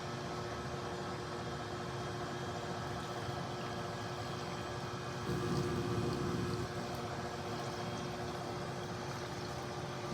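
Water pouring steadily onto the soil of freshly planted bean containers as they are watered, a little louder for a second or so midway.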